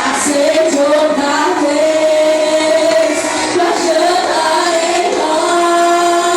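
Worship song sung by a group of voices with female voices prominent, held sung notes over instrumental backing.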